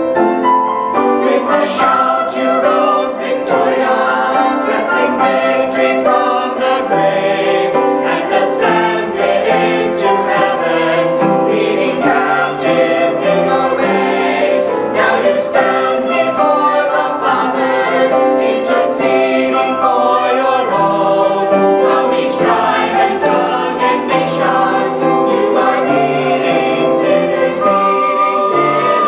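A mixed choir of young men and women singing a hymn in parts, starting about a second in.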